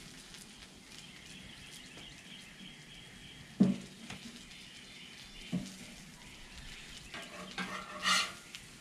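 Smashed potatoes frying in oil on a Blackstone steel griddle with a steady sizzle, while metal spatulas scrape under them and knock on the steel plate: one sharp clank about halfway through, a lighter one a couple of seconds later, and several scraping strokes near the end as the potatoes are turned.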